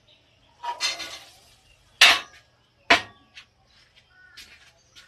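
Kitchen utensils knocking and scraping against a cooking pot: a short scrape, then a few sharp clinks, the loudest about two seconds in.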